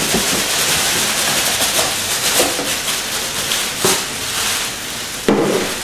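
Used wood cat-litter bedding sliding and pouring out of a plastic cage tray into a plastic carrier bag: a steady rustling hiss of falling litter and crinkling bag, with a few knocks of the tray against the bag, the loudest near the end.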